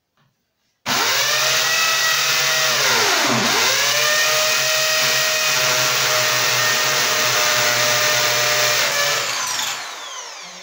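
Electric drill starting up and running at speed while drilling into the wall. Its pitch dips sharply once, about three and a half seconds in, then picks back up. It winds down near the end.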